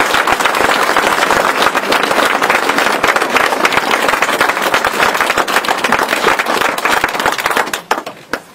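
Audience applauding: dense, loud clapping that dies away about eight seconds in.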